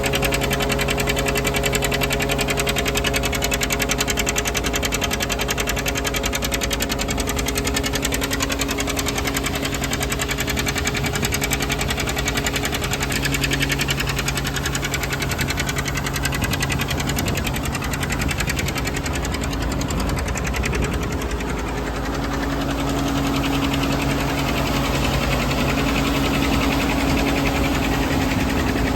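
John Deere 720 two-cylinder diesel tractor running steadily under load, driving a Gehl feed grinder that is grinding chicken feed, with a fast, even mechanical beat. The sound eases slightly about two-thirds of the way through, then comes back up.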